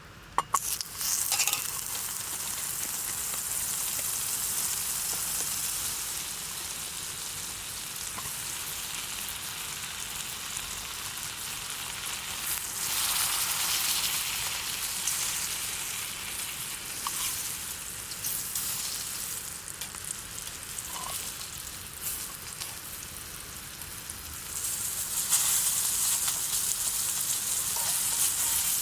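Food sizzling in a hot pan, after a few sharp metal clinks just after the start; the sizzle swells for a couple of seconds midway and again near the end.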